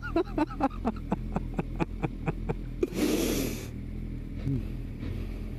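Motorcycle engines idling at a standstill as a steady low hum. Over it comes a quick run of short clicking pulses, about four a second, for the first three seconds, then a brief breathy rush of noise.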